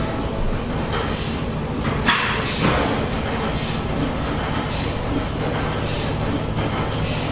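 Several antique stationary gas engines running together in a barn, a steady low mechanical drone, with two short louder bursts about two seconds in.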